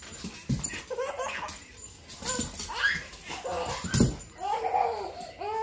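A baby giggling and squealing in short bursts while a dog scrambles about on a hardwood floor, with two thumps about half a second and four seconds in.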